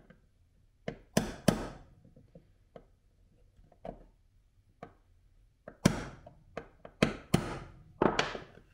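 Ball-peen hammer tapping a pin punch to drive a steel pin down into a 3D-printed holster. There are about three sharp metallic taps a second in, then a pause, then a quicker run of six or seven taps from about six seconds in.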